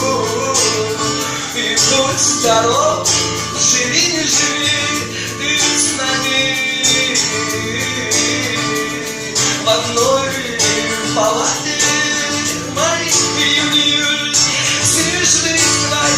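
A rock band playing a song live: a gliding melody line over steady sustained chords, continuous and loud.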